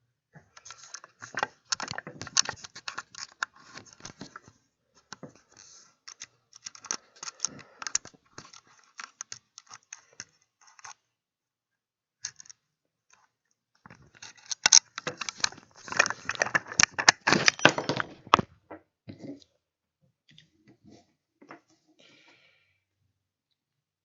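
Small hard objects handled close to the microphone: rapid clicking and rattling in two long spells, the second one louder, then a few scattered ticks.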